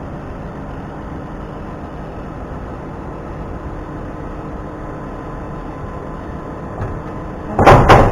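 A steady engine or machine hum, then a short burst of loud clattering knocks near the end.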